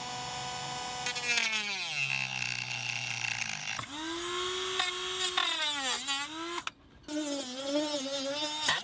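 Dremel rotary tool's small motor whining as its bit cuts into the boat's fiberglass deck; the pitch sags and wavers as the bit is pressed in and loaded. The motor stops briefly a couple of seconds before the end, then starts again.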